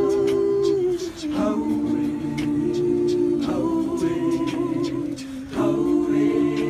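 Music: a cappella voices singing long held chords that change every two seconds or so, over a light regular tick.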